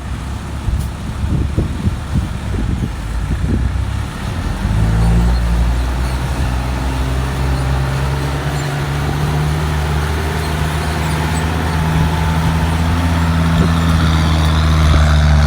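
Heavy diesel engine running steadily from about five seconds in, with irregular wind buffeting on the microphone before it.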